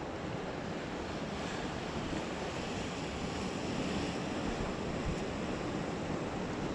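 Ocean surf washing steadily against rocks below, with some wind on the microphone.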